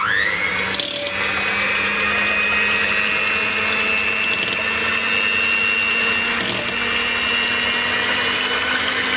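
Electric hand mixer switching on, its motor spinning up with a rising whine and then running steadily on its lowest speed as the beaters whip cream in a steel bowl.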